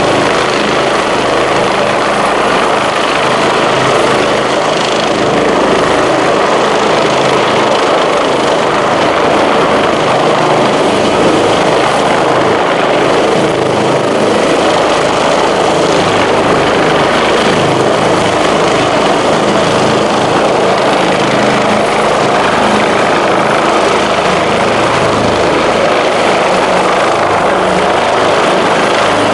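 Airbus H145 air-rescue helicopter with a five-blade main rotor and twin turboshaft engines flying slowly and hovering low overhead: steady, loud rotor and turbine noise.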